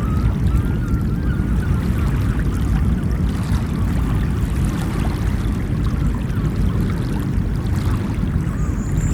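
Ocean surf washing steadily and continuously, with faint short warbling sounds in the first few seconds.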